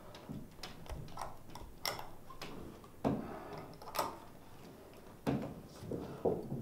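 Irregular light knocks and clicks from a jointed wood-and-metal puppet being handled and set down on a wooden stage floor, with the sharpest clicks about two and four seconds in.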